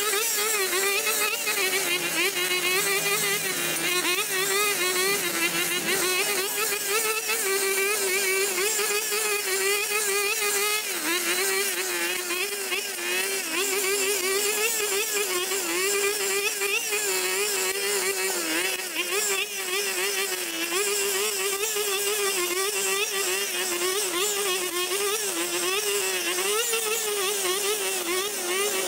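Petrol brush cutter running at high speed, its engine note wavering up and down without stopping as the blade cuts through dense overgrown grass.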